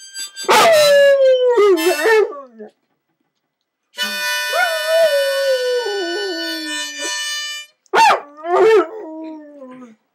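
Yellow Labrador howling along to a harmonica that is played badly. A long howl falls in pitch near the start. After a short pause the harmonica holds a chord for about four seconds while the dog howls over it, and another falling howl comes near the end.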